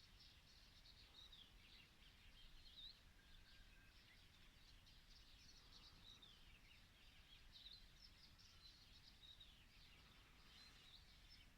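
Faint dawn birdsong: many small birds chirping and twittering, short high chirps and trills overlapping, over a steady low background rumble.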